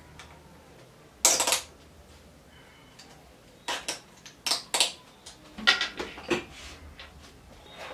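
Clicks and clatter of a motorcycle helmet's chin strap and buckle being fastened by hand: a brief rustle about a second in, then a run of short sharp clicks and knocks from about three and a half seconds in.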